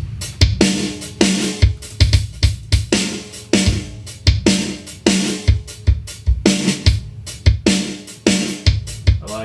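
Music: a drum kit beat, likely programmed, with a kick, snare and hi-hat pattern and pitched notes held underneath.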